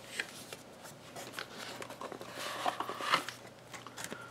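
Paper inserts and stiff cardstock cards being lifted and pulled out of a cardboard box: soft rustling and scraping with small clicks, a little louder about two and a half to three seconds in.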